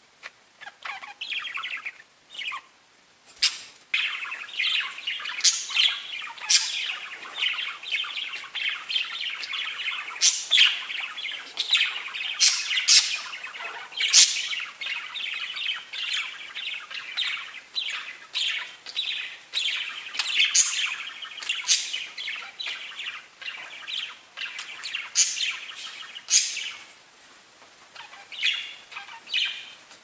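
Several budgerigars (pet parakeets) chattering and warbling in a constant stream of chirps, with sharp high-pitched calls mixed in. A few scattered chirps open it, and the chatter becomes continuous a few seconds in, thinning out near the end.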